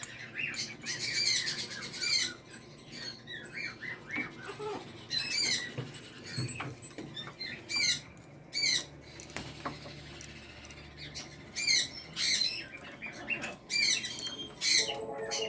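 Caged parrots, mostly sun conures, chirping and squawking in short, repeated calls that keep overlapping.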